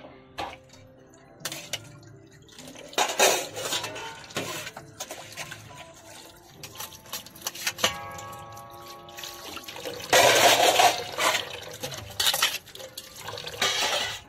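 Tap water splashing onto steel plates as they are rinsed and rubbed by hand, coming in several bursts, with clinks of steel utensils in between.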